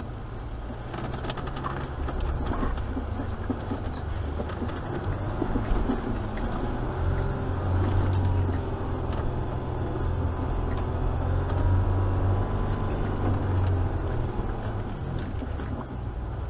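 Jeep engine working hard under load on a steep off-road hill climb, a steady low rumble that grows louder through the middle of the climb and eases slightly near the end.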